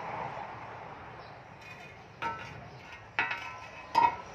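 Steel shovel blade clanking against concrete three times, each knock ringing briefly; the third is the loudest.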